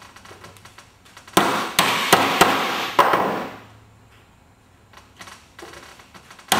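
Wood chisel chopping and paring out a hinge recess in a timber door jamb, cutting down to the marked line: about five sharp knocks in quick succession from about a second and a half in, with lighter tapping before and after.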